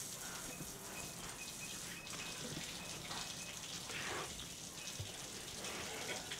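Hands kneading soft yeasted bread dough on a wooden board: soft, wet squishing and pressing. A faint short high chirp repeats about twice a second in the background.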